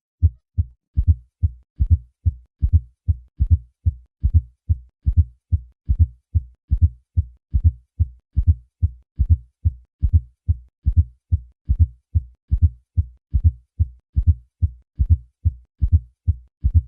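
Heartbeat heard at the cardiac apex with a fourth heart sound (atrial gallop): low thumps in a repeating triple rhythm, the extra sound falling just before each first heart sound. A fourth heart sound is the sign of a stiff, non-compliant ventricle, most often from hypertension.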